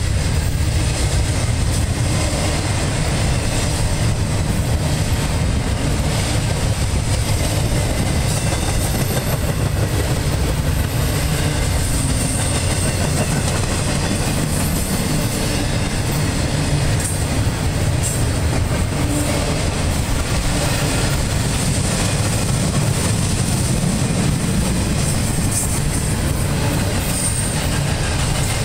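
Double-stack intermodal well cars of a long freight train rolling past close by: a steady noise of steel wheels running on the rail, heaviest in the low end.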